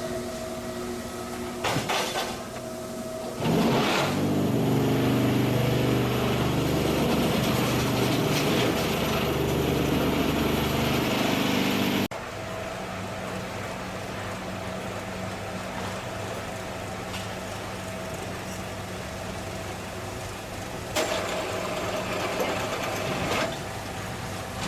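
QTJ4-25 semi-automatic concrete block machine working. About three and a half seconds in, a loud low vibrating hum starts and runs for about eight seconds before cutting off suddenly, typical of the vibration motors compacting a mould fill. Under it is a steady machine hum, with clattering knocks near the start and again near the end.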